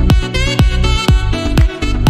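Electronic dance music with a steady kick drum about twice a second under a melodic synth line.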